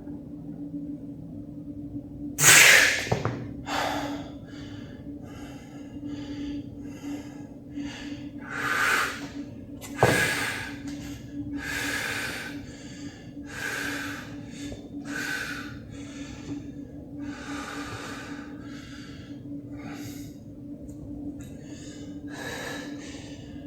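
A man breathing hard in a run of short, forceful breaths while lifting weights, over a steady low hum. There is a sharp knock about ten seconds in.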